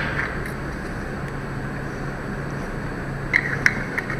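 Steady low background hum, with a few light clicks about three and a half seconds in as the detached camera lens and its protector cap are handled.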